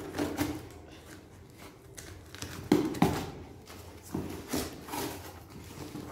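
Cardboard box being opened by hand: packing tape worked loose and flaps pulled open, with scraping and rustling cardboard and two louder knocks about three seconds in.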